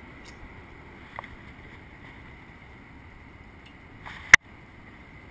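Steady faint background hiss with a thin high steady tone, a light click about a second in, and a single sharp click a little after four seconds, the loudest sound, just after a brief rustle.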